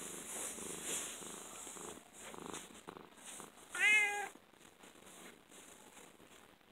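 Domestic cat purring in a low rumble, then giving one short meow about four seconds in that rises and falls in pitch.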